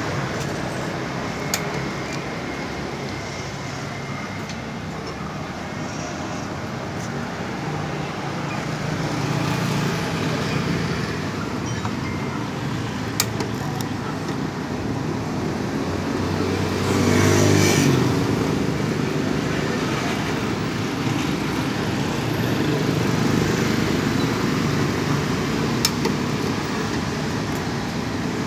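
FRD-1000 continuous band sealer with date coder running: its motor and moving conveyor and drive belts give a steady mechanical whir, with a few sharp clicks and a louder swell of noise just past the middle.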